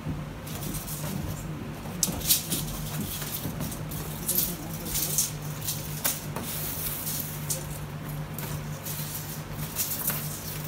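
Wallpaper being handled and worked on a pasting table: scattered rustles, crackles and clicks of paper and hand tools, the sharpest about two seconds in, over a steady low hum.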